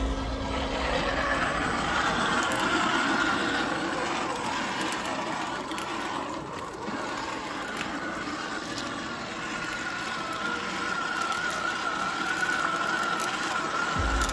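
RC crawler's brushed electric motor and geared drivetrain running steadily, with a high whine that fades somewhat in the middle and comes back strongly toward the end.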